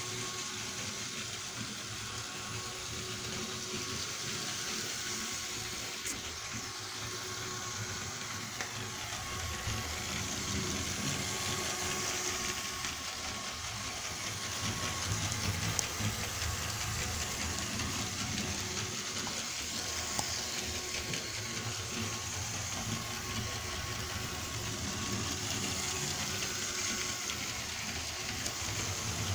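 A motorized Lego train running steadily around a plastic track: a continuous whir from its small electric motor and wheels.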